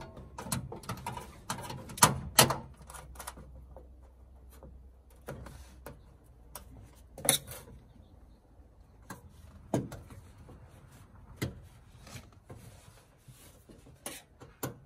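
Knocks and clicks of an aluminum dash panel being handled and pressed into place in a car's dash opening: two sharp knocks about two seconds in, then single fainter ones every couple of seconds.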